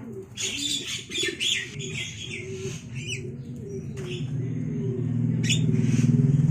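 Javan mynas giving a burst of harsh chirping calls over the low cooing of domestic pigeons. About two-thirds of the way in, an engine running close by grows louder and covers the birds.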